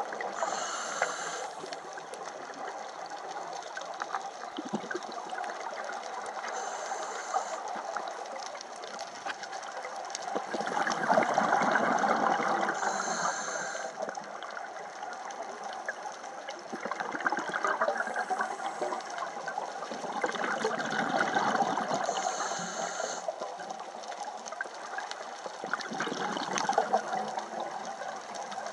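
Scuba diver breathing through a regulator underwater: a short high hiss on each inhale every five to six seconds, and a louder bubbling gurgle on the exhales, over a steady underwater rush.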